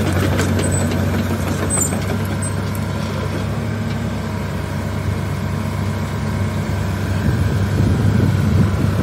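Heavy diesel engine idling steadily, a low drone that grows a little louder near the end.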